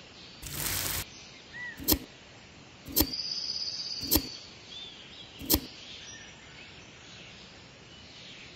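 A short swish, then four sharp knocks about a second apart, matching a miniature pickaxe striking and digging into sand. Birds chirp faintly in the background.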